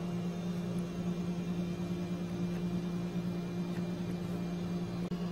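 Steady low electrical hum with background hiss, and a few faint soft ticks.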